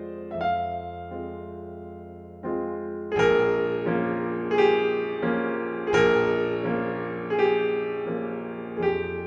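Slow piano music with a held low bass note. About three seconds in it grows louder, with chords struck roughly every second and a half.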